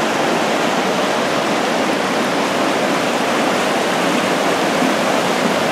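Steady rushing of a strong river current pouring over rocks at a waterfall, an even unbroken hiss of water.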